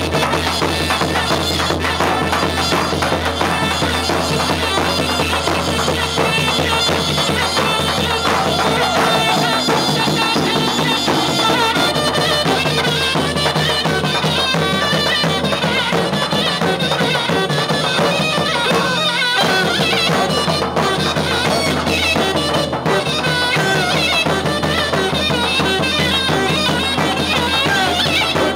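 Live Turkish folk dance music: a davul bass drum beating under a shrill, continuous reed-pipe melody, the davul-and-zurna pairing played for line dancing.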